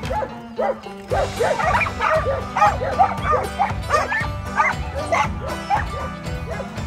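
A pack of dogs barking and yipping excitedly, many short barks overlapping each other, growing denser about a second in, over steady background music.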